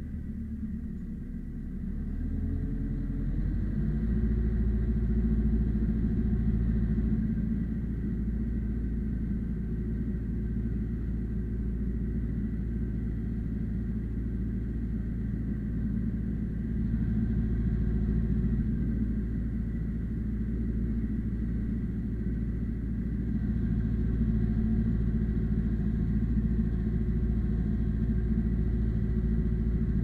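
Ursus C-355 tractor's four-cylinder diesel engine running steadily under load while pulling a two-furrow plough through hard ground, heard from inside the cab. The engine gets louder about three seconds in and then holds a steady note.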